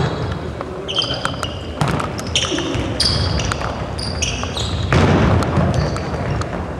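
Sports shoes squeaking in short high-pitched chirps on a wooden sports-hall floor, mixed with sharp knocks of a futsal ball being kicked and dribbled, echoing in the hall.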